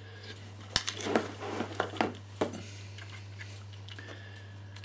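Handling clicks and knocks of a plastic AA/AAA battery charger and its mains lead being picked up and plugged in: about six sharp clicks in the first two and a half seconds, then only a steady low hum.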